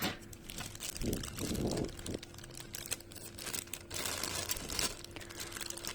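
Plastic packaging crinkling and rustling in irregular bursts as the mixer's accessories are handled and unwrapped.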